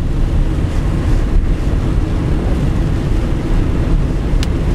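Steady low rumble inside the cab of a 2007 Dodge Ram 3500 turbo-diesel pickup driving on a wet road in heavy rain: engine and tyre noise on the wet pavement, with rain on the windshield.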